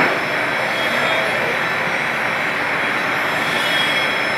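Large lathe set up for boring runs with a big twist drill turning in its four-jaw chuck, giving a steady, even machine noise. A short clank comes right at the start.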